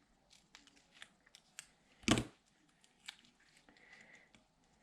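Scissors snipping through paper in a series of short, light clicks, with one much louder knock about two seconds in.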